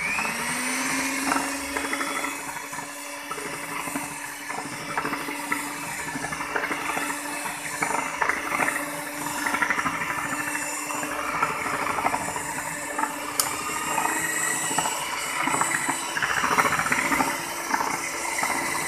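Electric hand mixer running at a steady speed, its twin beaters whisking mango purée into whipped cream, a steady motor whine with frequent light knocks of the beaters against the bowl.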